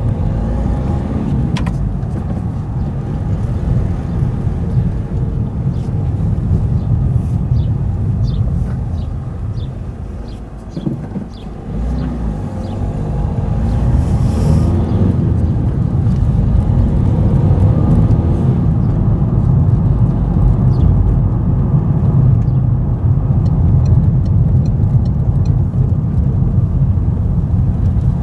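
Car driving along a road: engine and tyre rumble heard from inside the car, easing off about ten seconds in and then building up again.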